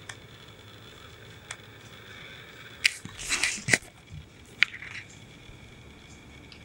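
Cat pawing at a plastic ball-track toy, its balls knocking inside the track: a few sharp plastic clacks and a short rattle near the middle, then one more clack.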